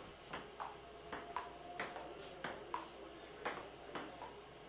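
Table-tennis rally: about ten sharp clicks of the celluloid ball striking the paddles and bouncing on the table, many in quick pairs a third of a second apart.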